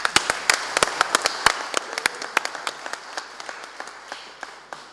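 Audience applauding, a dense patter of claps that is loudest at the start and gradually thins and dies away near the end.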